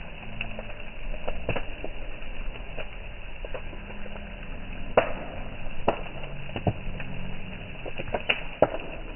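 Bonfire crackling with a steady hiss and scattered sharp pops, the loudest about five seconds in and again near the end.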